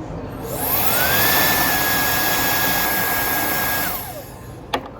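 Hair dryer switched on, its motor whine rising as it spins up and then holding steady over a loud rush of air. It is switched off after about three seconds and winds down with a falling whine. A couple of sharp clicks follow near the end.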